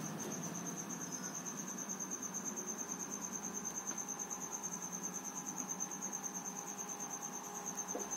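A cricket chirping: one steady, high-pitched trill in rapid even pulses, over a faint low hum.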